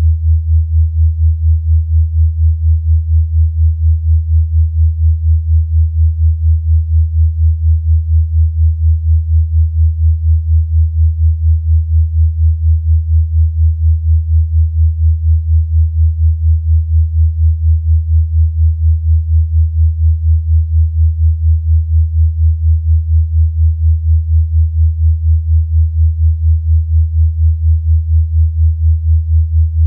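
Synthesized low sine tone for sound therapy, held steady in pitch while its loudness pulses evenly a few times a second.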